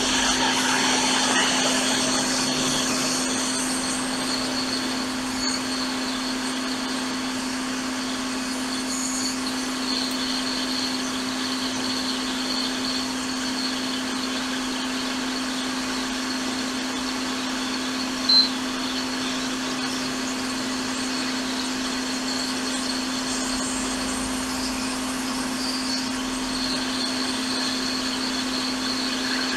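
Hot air rework station blowing steadily while desoldering the charging IC (Tristar 1612A1) from an iPad mini 5 logic board, with a constant low hum under the airflow. One short sharp click partway through.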